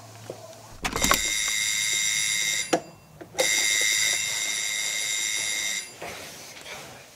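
Electric doorbell ringing insistently in two long rings, the first about a second and a half long and the second over two seconds.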